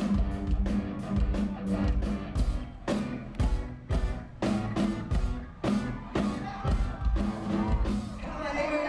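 Post-hardcore band playing live through a loud PA, heard from the crowd: heavy drum-kit hits and band chords in a stop-start rhythm. Near the end the drums drop out and the crowd shouts.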